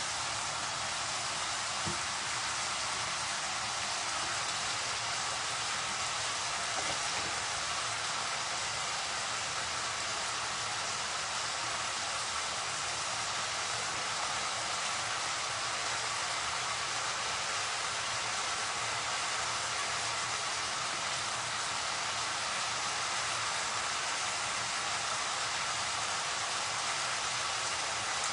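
Steady sizzle of long beans, potatoes and fried fish cooking in oil in a pan.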